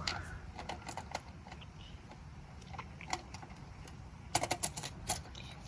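Scattered light clicks and taps of hand tools and parts being handled on an electric chainsaw, with a quick run of several clicks about four and a half seconds in.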